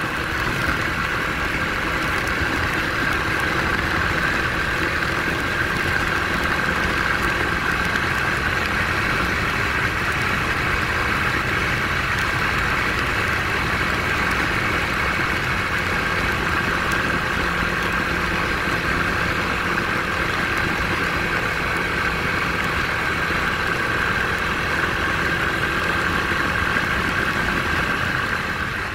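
150cc motorcycle cruising at a steady speed on a wet road: an even engine hum that holds its pitch, mixed with wind and tyre noise.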